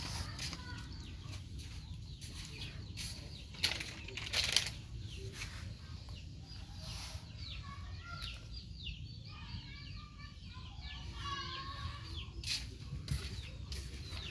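Outdoor yard ambience with faint chirping calls and a steady low rumble. A few short sharp clicks and rustles come through, the loudest two about four seconds in.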